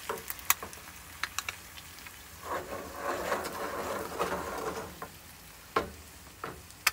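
Two eggs slowly frying in a nonstick pan greased with vegetable-oil spray: scattered pops and crackles of spitting fat, with a longer scraping rustle in the middle as the pan is jiggled on the gas stove's grate.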